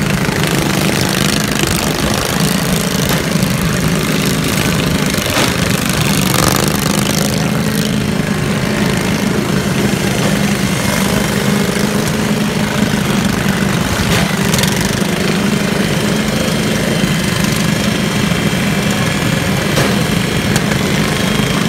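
Several riding lawn mower engines running together steadily, with a few brief sharp knocks.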